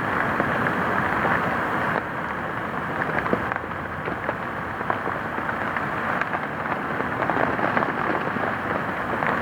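Steady rain falling, with many separate drop hits scattered over an even hiss.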